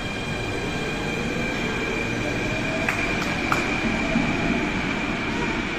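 Athens Metro second-generation electric train pulling out of an underground station: a steady rumble of wheels on rails with a steady high electric whine over it. A few sharp clicks come about halfway through.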